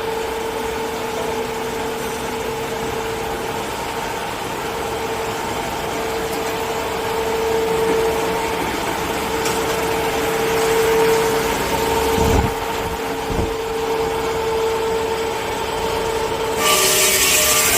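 Double-channel log saw for tissue-paper logs running with a steady hum. There are two knocks about 12 and 13 seconds in, and a loud hiss starts near the end.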